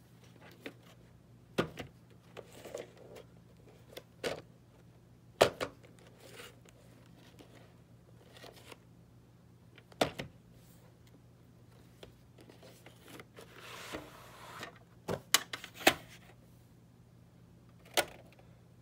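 A VHS cassette and its cardboard sleeve handled on carpet: scattered taps and clicks of plastic and cardboard, with a longer scraping rustle about two-thirds of the way through as the cassette slides out of the sleeve. A faint steady hum runs underneath.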